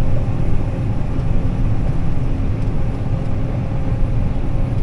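John Deere 9400 combine running steadily while harvesting corn with a 643 corn header: a constant low machine drone.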